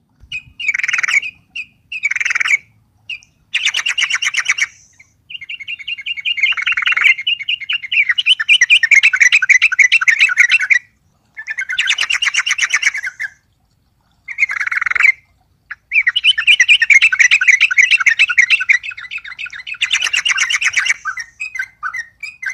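Yellow-vented bulbul (trucuk) singing in phrases of rapid chattering notes, each phrase one to three seconds long with short pauses between: the excited, vigorous song of a bird provoked by a rival.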